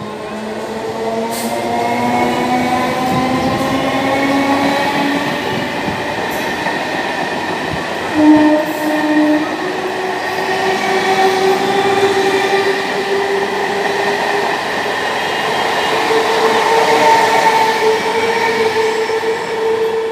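Electric multiple-unit local train running through the station without stopping: a loud rumble of the wheels on the rails, with a motor whine that rises in pitch as it approaches. A short loud horn blast, about a second long, sounds about eight seconds in, as the train passes close by.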